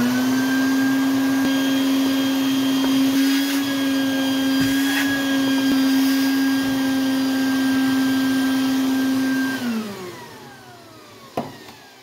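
Shop vac running as its hose nozzle vacuums dirt out of an old air compressor's housing, with a steady motor whine. About ten seconds in the motor cuts out and winds down with a falling pitch, followed by a single sharp knock.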